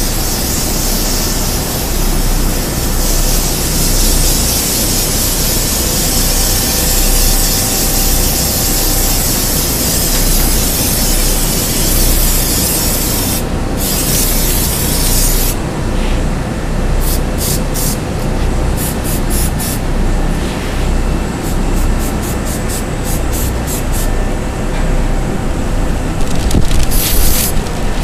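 Aerosol can of spatter paint hissing as it is sprayed onto a car trunk floor. It runs as one long steady spray at first, then from about halfway on comes in many short bursts.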